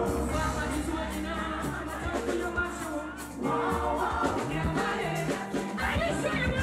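Live gospel music: a woman's lead vocal sung into a microphone over a band with bass and drums, with backing singers joining in.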